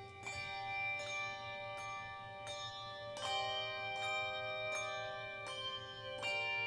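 Handbell choir ringing a slow melody, a struck bell note about every three-quarters of a second, each left ringing on under the next.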